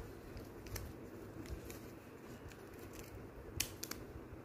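Small scissors snipping paper: a few faint, sharp snips, with two or three clearer ones close together about three and a half seconds in.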